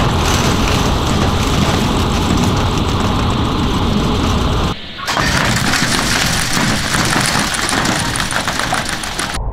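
Giant blender's spinning steel blades smashing up three ordinary blenders. A dense, continuous clatter of steel and plastic pieces hits the polycarbonate jar over the running drive. The sound cuts out briefly about halfway through.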